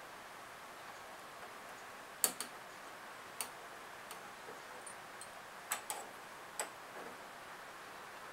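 A few sharp, irregular clicks and taps of a hand tool working a fastener on pinball machine parts, about seven in all, over a steady low hiss.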